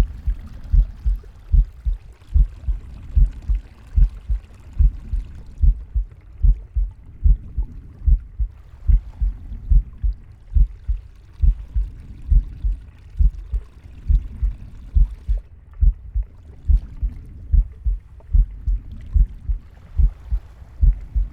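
Heartbeat recorded close to the body: low paired lub-dub thumps in a steady, even rhythm, with soft breathing swelling and fading every few seconds.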